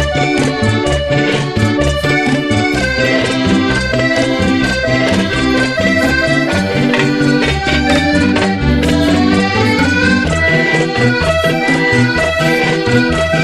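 Accordion-led cumbia sabinera music, with a bass line and a steady percussion rhythm.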